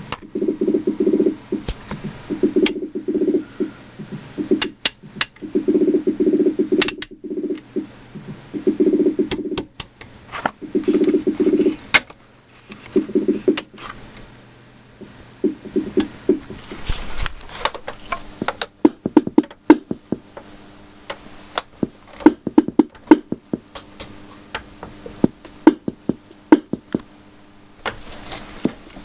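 Korg Mini Pops 120 analogue drum machine playing a rhythm pattern. For the first half it gives clusters of low pitched drum tones mixed with clicks; in the second half it is mostly sharp clicky hits over a steady hum.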